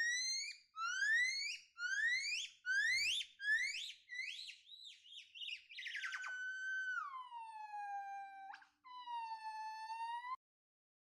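An animal's high whistling squeals: a string of short rising calls, coming quicker after a few seconds, then a long call that slides down in pitch and a shorter, lower one.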